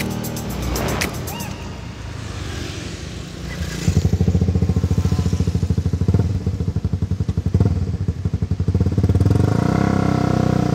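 Motorcycle engine idling close by: a fast, even pulsing that comes in loudly about four seconds in and holds steady, over street traffic.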